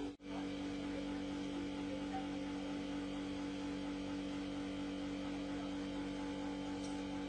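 Electric motor running at a steady speed, giving an even hum with a constant pitch.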